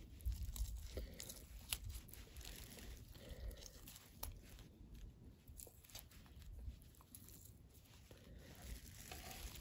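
Faint crinkling and soft tearing as charred, blistered skin is peeled by hand off a fire-roasted green chile, with scattered small clicks.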